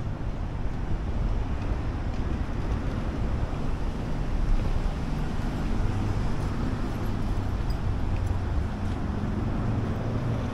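Steady city street traffic: a continuous low rumble of passing vehicles' engines and tyres.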